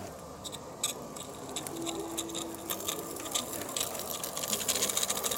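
Garden-scale live-steam tank locomotive and its log wagons running past on garden track, making rapid irregular clicking and ticking that grows denser and louder over the last second or two as the train draws close.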